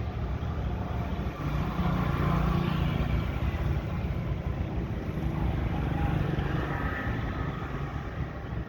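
A motor running with a steady low rumble and hum.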